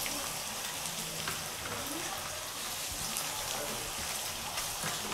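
Chopped onions frying in hot oil in a kadai: a steady sizzle with many small crackles.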